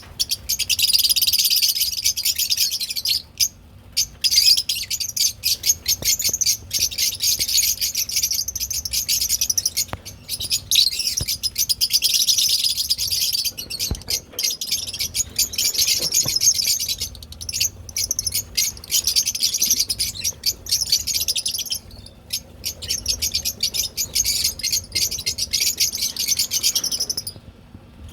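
A group of lovebirds chattering in rapid, high-pitched chirps, almost without a break, with a couple of short pauses.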